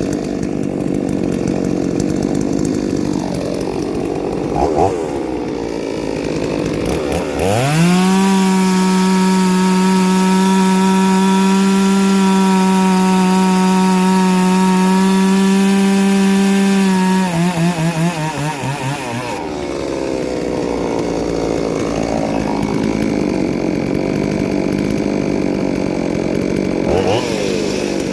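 Ported two-stroke chainsaw cutting wood under load, then revving up free to a steady high scream at full throttle about 7 seconds in, held for about 9 seconds before it bogs back down into the cut; near the end it revs up again.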